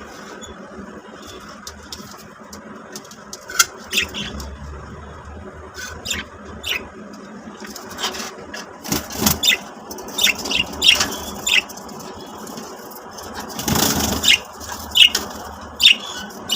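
Budgerigars giving short, scattered, high squeaky chirps, with a brief rustling scrape about fourteen seconds in.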